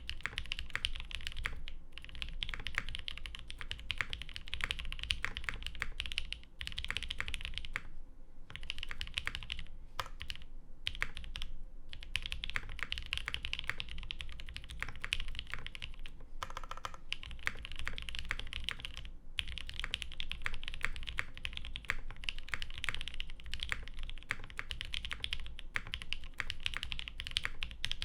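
Fast typing on a Mode Designs SixtyFive mechanical keyboard with lubed 62g Creamsicle switches, a carbon fiber half-plate, GMK keycaps and no sound dampening. The keystrokes come in a dense, steady stream broken by a few short pauses.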